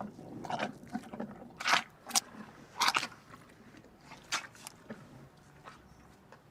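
An animal chewing and crunching, with irregular sharp crunches, loudest in the first three seconds and thinning out after about five seconds.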